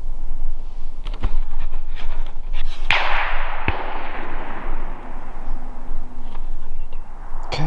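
A single rifle shot about three seconds in, with a long rolling echo that fades and falls in pitch over about four seconds.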